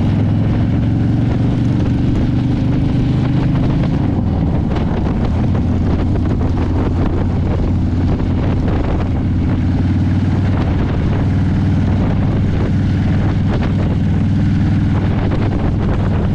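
Motorcycle engine running at a steady cruise, heard from the rider's seat, with wind rushing over the microphone.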